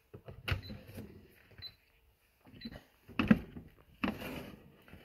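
Pampered Chef Deluxe Air Fryer oven door being opened: scattered clicks and light knocks of the door and handling, a sharper clunk about three seconds in, then a short rush of noise near the end.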